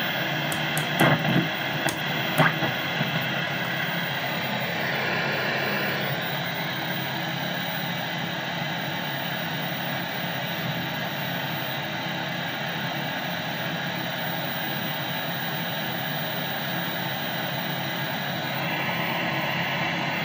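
Static hiss from the loudspeaker of a 1966 Philco valve television, with a few sharp clicks from its rotary VHF channel selector in the first couple of seconds.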